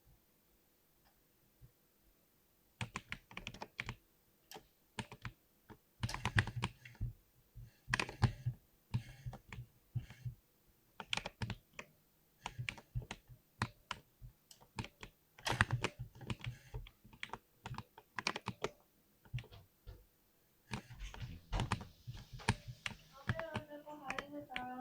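Typing on a mechanical keyboard with Cherry MX switches: bursts of quick keystrokes broken by short pauses, starting about three seconds in.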